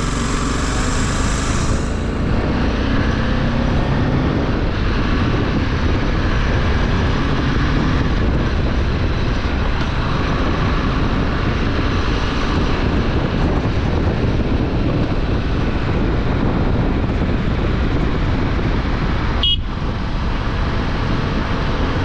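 Motorcycle running steadily as it is ridden along a rough road, with engine and rushing noise, heaviest in the low range. There is a brief dropout about three-quarters of the way through.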